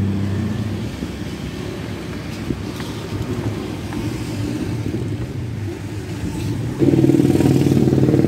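Motor vehicle engines running with a steady low drone. About seven seconds in, a louder engine comes in and holds steady.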